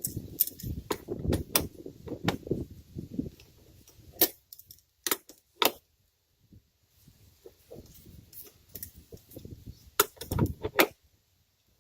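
Sharp metal clinks and handling rustle: a wrench and faucet parts knocking together while the packing nut on a frost-free wall faucet is worked into place. The clinks come in a few clusters, the loudest near the middle and again near the end.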